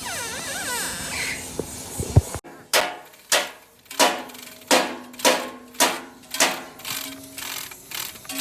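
Steady hammer blows, about ten strikes at a little under two a second, each with a short ring, during work on the diesel engine. A warbling, sweeping tone comes first, followed by a single sharp knock.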